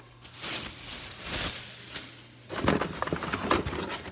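Blister-carded die-cast toy cars being handled and shuffled: a sliding, hissy rustle of card and plastic about half a second in, then from about two and a half seconds a run of crinkling clicks and clacks as the packs are moved.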